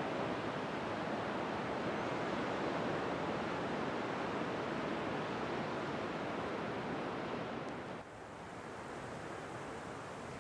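Ocean surf: a steady wash of waves breaking on a beach. About eight seconds in it cuts off sharply to a quieter, thinner background hiss.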